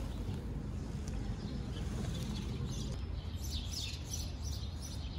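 Small birds chirping, with a run of quick, high, falling chirps in the second half over a low, steady rumble.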